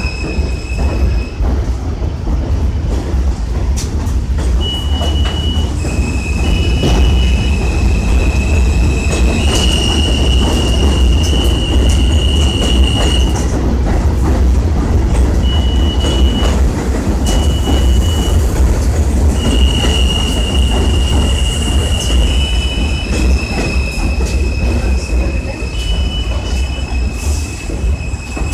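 A New York City Subway train running past on the elevated track, a heavy steady rumble with high-pitched wheel squeal that comes and goes several times.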